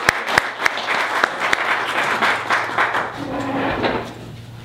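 Audience applauding, dying away about three to four seconds in.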